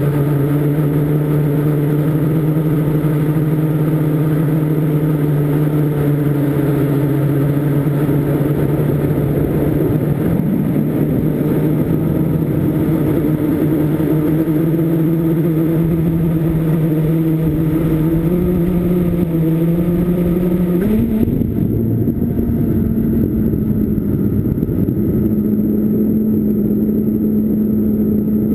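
Blade 350 QX quadcopter's motors and propellers buzzing in flight: a steady hum whose pitch drifts with throttle. About 21 seconds in the pitch steps up and the hiss thins out.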